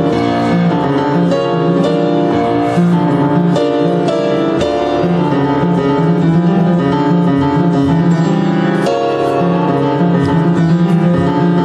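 Yamaha U1 upright piano played with held, overlapping notes and a low bass line, the notes changing every second or so.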